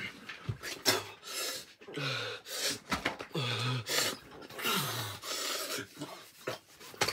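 A teenage boy panting hard and moaning, short breaths about one to two a second, several with a low falling voiced moan. He is in distress from the burn of an extremely hot chili chip that has left him struggling to breathe.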